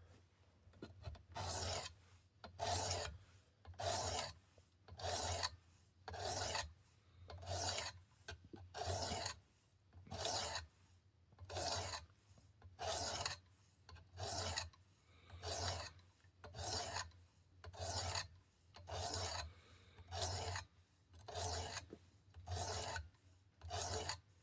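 Sharpening stone of a Work Sharp Precision sharpener rasping along a knife's edge in even, repeated strokes, about one every second and a quarter, as the edge bevel is set at about 18 degrees.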